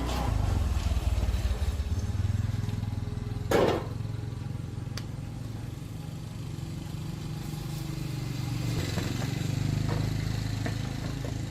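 A small engine running steadily at low speed, with one sharp knock about three and a half seconds in.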